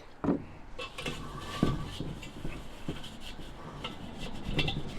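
A rag rubbing and wiping around the inside of a 22-inch Weber kettle grill's metal bowl, an uneven scraping swish with a couple of light knocks against the metal.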